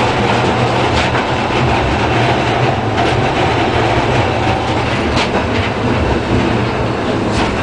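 Blackpool Balloon double-deck electric tram running along the track, heard from inside the saloon: a steady rumble of wheels and running gear, with a few sharp clicks spaced about two seconds apart.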